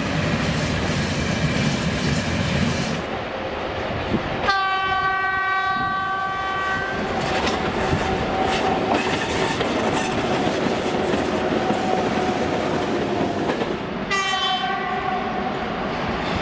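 Locomotive whistle sounding over the rumble and clatter of a moving train: one long blast starting about four seconds in and a second blast near the end.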